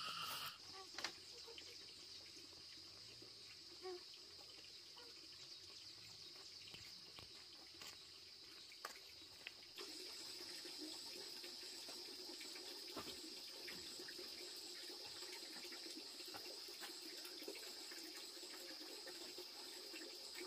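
Faint, steady background hiss with a few soft clicks and knocks scattered through it. The hiss steps up slightly about ten seconds in.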